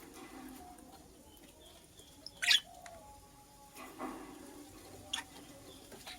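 Lovebird giving short, sharp, high squeaky chirps: one loud chirp about two and a half seconds in, then a fainter one and a second clear chirp near the end.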